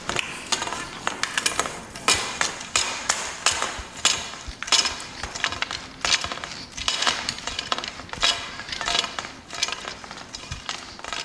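Rotary pipe cutter being turned around blue aluminium compressed-air pipe to cut it, giving an irregular run of metallic scraping clicks several times a second as the cutter wheel goes round and is tightened.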